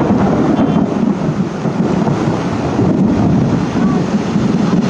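Heavy rain pouring down on a road, with a loud, steady low rumble running under it.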